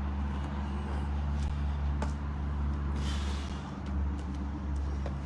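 A steady low rumble runs underneath, with a few light thuds of trainers landing on a rubber exercise mat during lunges.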